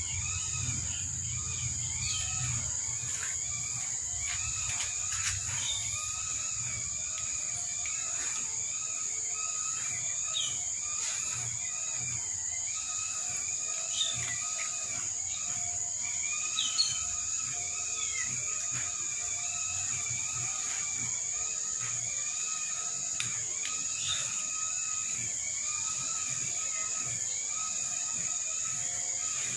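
Short, high, arched calls repeating about once a second or so over a steady high hiss, with a few small clicks.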